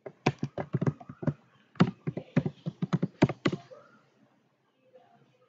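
Typing on a computer keyboard: a quick run of about twenty keystrokes over three and a half seconds, then the typing stops.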